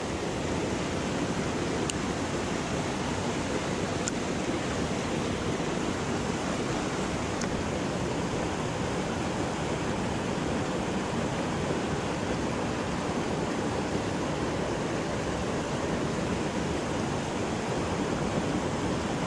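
Steady rush of water pouring from a spillway culvert pipe into a pool, churning its surface.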